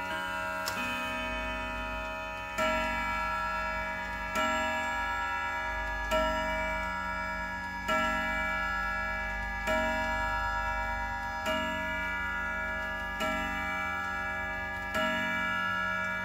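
Howard Miller wall clock striking the hour on its chime rods. From a couple of seconds in, one ringing stroke comes about every 1.8 s, with the movement ticking underneath. It is the strike for nine o'clock, showing the hour hand is set to match the strike.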